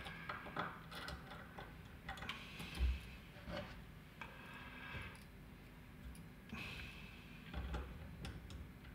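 Faint light clicks and scraping as small screws are driven in by hand to fix the wafers of an Elma rotary switch, with a soft knock about three seconds in.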